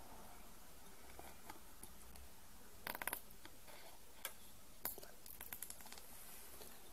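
Faint plastic clicks and crinkles as a soft chocolate-pen tube is squeezed and pressed against a clear plastic mold: a quick run of clicks about three seconds in, then single clicks and a few small ticks over the next three seconds.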